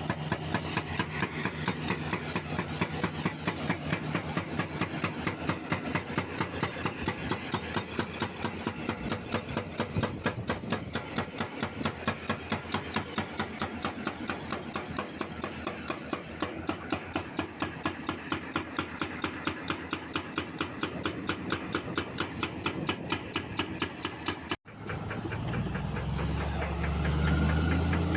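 Hydraulic breaker on a CAT 320C excavator hammering reinforced K500 concrete in rapid, even blows, a few a second, over the excavator's diesel engine. Near the end, after an abrupt break, the hammering stops and only the diesel engine is heard running with a deep hum.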